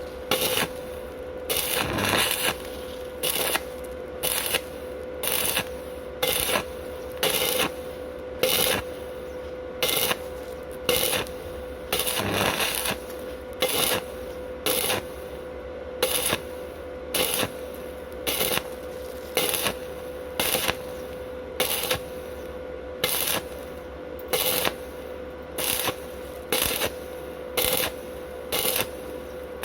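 Stick-welding arc from a Wert SWI 190 inverter welder burning a 2.5 mm rutile electrode: a crackling sizzle that swells in regular bursts, about one and a half a second, over a steady hum.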